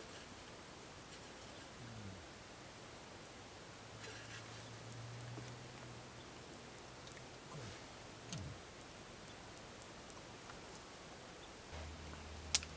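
A steady high-pitched drone that stops abruptly near the end, followed by a single sharp click.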